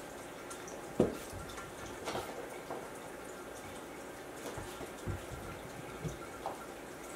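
Scattered light knocks and taps from a West Highland White Terrier puppy scampering and batting a ball toy, the loudest about a second in.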